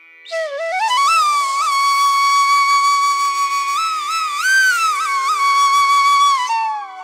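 Background music: a slow melody, mostly one long held note with small bends and ornaments, over a steady drone. It falls away near the end.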